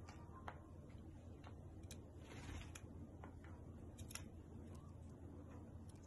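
Faint, irregular clicks and taps from a lovebird's beak and claws on a tabletop, with a brief soft rustle about two seconds in, over a low steady hum.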